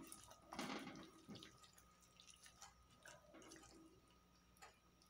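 Wooden spoon stirring chicken pieces in a thick tomato sauce in a pan: faint wet squelches and soft scrapes, strongest in the first second and a half.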